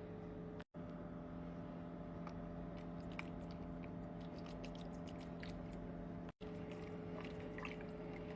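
Kitchen cooking sounds: scattered soft clicks and crackles over a steady hum, cut off abruptly twice.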